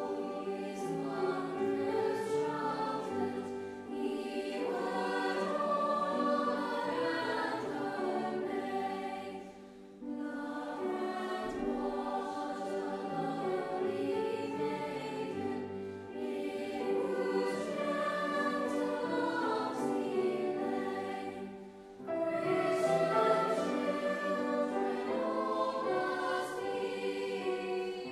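Mixed school choir of girls' and boys' voices singing a carol, in phrases of about six seconds with brief breaths between them.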